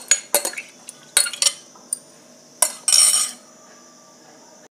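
A steel spoon clinks and scrapes against a glass bowl as soaked barley is spooned into a pressure cooker. There are several sharp clinks in the first two seconds and a longer, louder clatter just before three seconds in, then only a faint steady hum.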